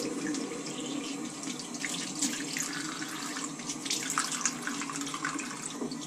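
Water running from a bath tap, with irregular splashes as handfuls of water are scooped up and splashed onto the face to rinse it.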